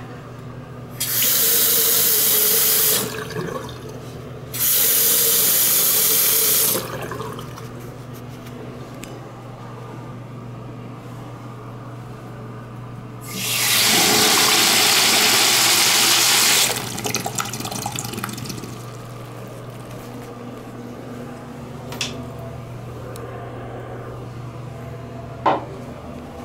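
A bathroom sink faucet is turned on twice, running about two seconds each time with abrupt starts and stops. About halfway through, a urinal flushes with a loud rush of water for about three seconds. A steady low hum runs underneath, and there is a sharp click near the end.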